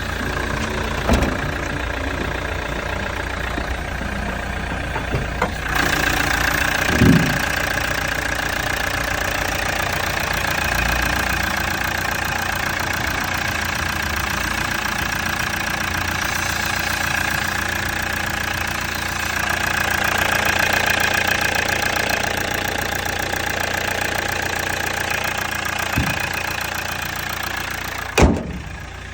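Nissan Terrano's turbocharged engine running steadily with a failed turbo; a steady high whine comes in about six seconds in. A few brief thumps are heard, and a sharp knock near the end, after which the sound drops.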